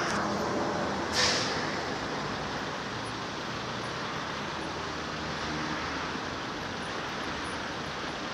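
Steady road and engine noise of a taxi driving along, heard from inside the car, with a short sharp hiss about a second in.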